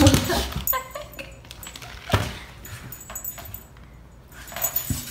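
Dog playing with and chewing a hard chew bone on a hardwood floor: scattered clicks, knocks and light jingling, loudest at the start, about two seconds in and near the end.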